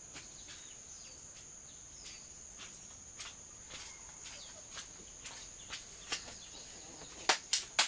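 Steady high-pitched insect drone, with scattered light clicks and taps and a few sharper clicks near the end.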